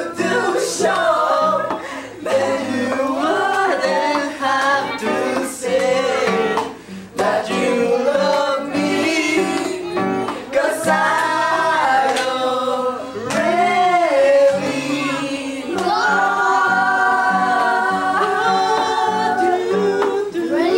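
A man and a woman singing together to a nylon-string classical guitar, with one long held note near the end.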